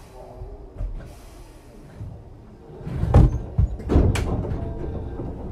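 Inside a commuter train car stopped at a station with its doors open: a faint hiss in the first two seconds, then a run of sharp knocks and low thumps from about three seconds in, the bumps and footfalls of passengers moving through the car.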